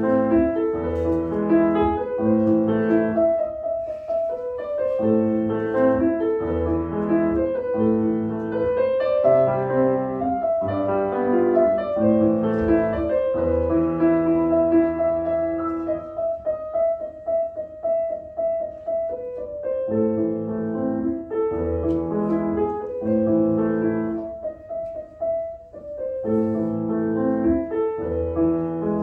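Grand piano played solo, a classical piece with a melody over a bass accompaniment. Past the middle the bass drops out for a few seconds and the playing grows lighter, with repeated high notes, before the full texture returns.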